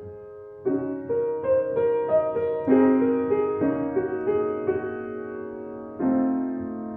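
Piano playing a short tune in its original key, melody over chords. A held note fades at first, then a new phrase comes in just under a second in and another near the end.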